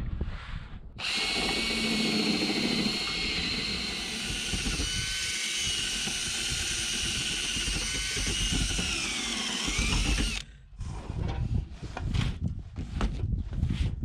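Power drill boring a half-inch hole through the shop roof. The motor runs with a steady whine for about nine seconds, its pitch dropping under load near the end, then it stops suddenly. Irregular knocks and handling noise follow.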